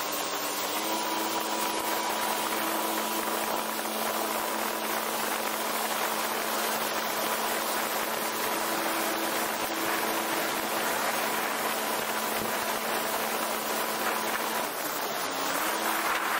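Yamaha WaveRunner XL700's two-stroke twin engine running at steady high speed under way, a constant whine over the rushing hiss of spray and wind. The engine pitch rises and settles about a second in and then holds.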